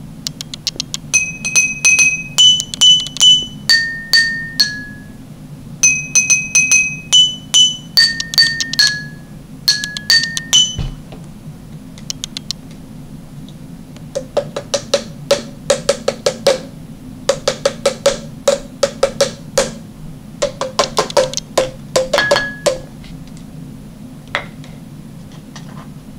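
Water-tuned drinking glasses struck in quick succession, ringing out a short tinkling melody of high notes, the same phrase played twice. After a pause of a few seconds a second run of struck notes follows at a much lower, duller pitch.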